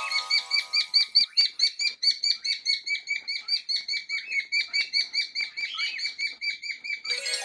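Cockatiels giving rapid, evenly repeated chirps, about four or five a second.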